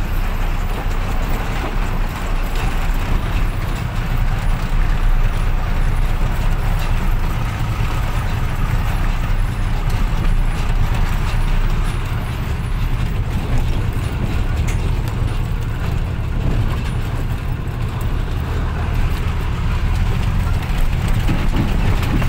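Truck engine running steadily with road noise, heard from inside the cab while driving.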